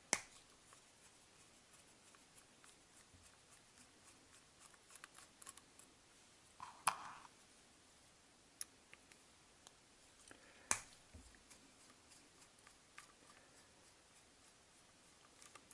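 Faint, scattered small metal clicks and ticks as a hex driver backs the four back-plate screws out of a Traxxas TRX 3.3 nitro engine. A few sharper clicks stand out, near the start, about seven seconds in and about eleven seconds in.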